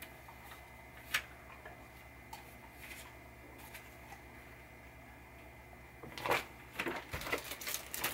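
Paper mailer and plastic wrapping being handled: faint scattered rustles and clicks, becoming busier and louder near the end as a plastic-wrapped organizer box of heat shrink tubing is pulled out. A steady low hum runs underneath.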